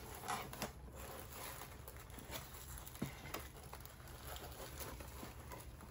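Faint rustling of packaging being handled, with a few light clicks and taps.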